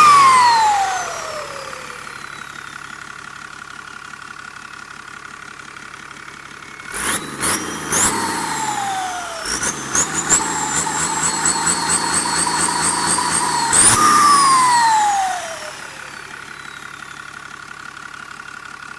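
Turbocharged tractor diesel engine, an AR70 with a modified turbo compressor housing and an inline injection pump, being revved. The turbo whistle falls away as the revs drop to idle. About seven seconds in, two quick blips come with rising whistles. Then the engine is held high for about four seconds with a steady high turbo whine, and it spools down with a long falling whistle to idle.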